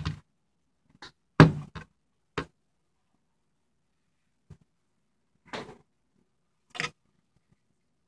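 Clicks and knocks from handling the open HP ProDesk 600 G1 mini PC's metal chassis and drive cage: a few sharp taps, the loudest about a second and a half in, and two short clatters later on.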